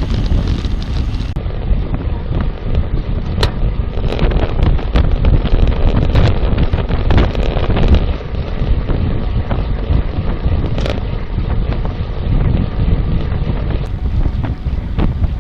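Wind buffeting the microphone in a loud, steady rumble, with a couple of sharp knocks.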